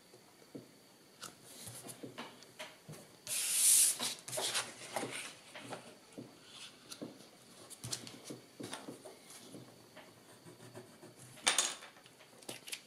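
Paperboard and kraft paper being handled on a cutting mat: sheets slid, pressed and rubbed, with small taps and rustles throughout and a louder sliding rustle about three seconds in and again near the end.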